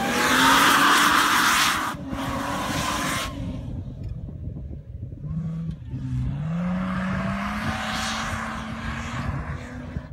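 Supercharged engine of a two-door Jeep Wrangler revving hard in two surges, a high supercharger whine rising with the revs over the engine note, with a loud rushing hiss under each surge. The revving eases off in between.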